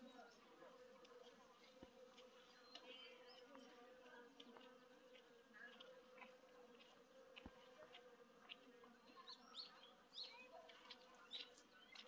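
Faint, steady buzzing of bees working cornelian cherry blossoms. A few short high chirps sound near the end.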